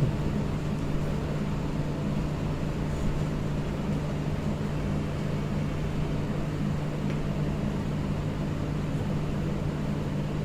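Steady low machine hum with a constant tone, running unchanged.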